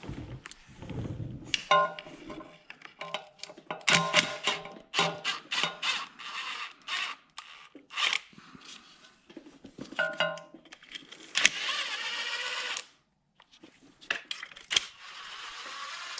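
Hand tools working the bolts of a HMMWV transmission oil pan: sharp metal clinks and ringing taps, with short runs of ratchet clicking. Twice, about eleven and fourteen seconds in, a steady rushing noise runs for a second or two.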